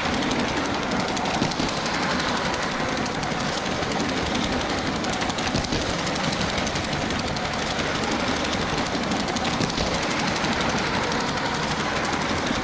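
LEGO 7750 steam locomotive with its 12-volt motor running along the track, heard close up: a steady, rapid rattling clatter of the motor and plastic running gear.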